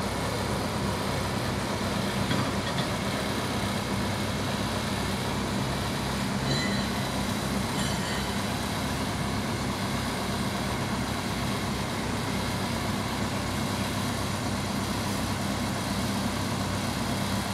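Mobile crane's diesel engine running steadily, driving the hydraulics as the boom extends: a constant low hum with an even throb underneath, its note shifting slightly about six and a half seconds in.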